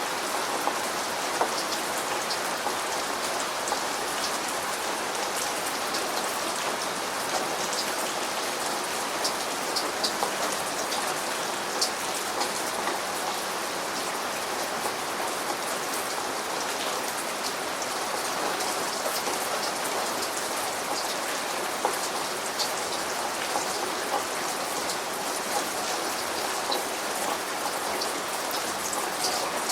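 Steady rain falling on a surface, an even hiss with many individual drops ticking sharply through it.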